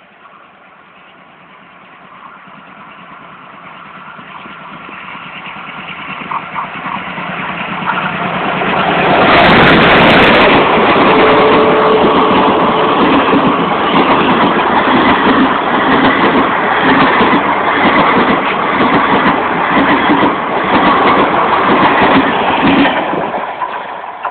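WDG3A diesel locomotive's 16-cylinder ALCO engine approaching and growing steadily louder, passing close about nine seconds in at the loudest point. The coaches follow with their wheels clattering in a steady rhythm, which drops away as the last coach goes by near the end.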